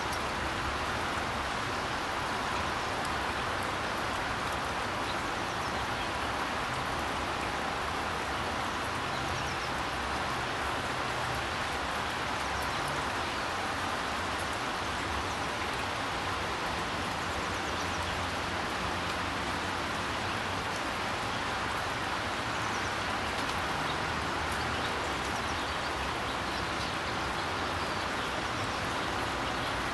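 Steady hiss of rain falling, with a faint low rumble underneath.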